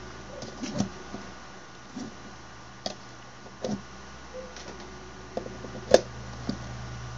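Small clicks and knocks of plugs and cable being handled, as a USB plug is fitted into a phone charger, with the loudest click about six seconds in. A steady low electrical hum runs underneath.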